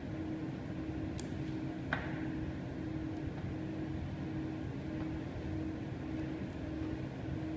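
Steady low hum of room ventilation with a faint wavering tone running through it, and a sharp click about two seconds in.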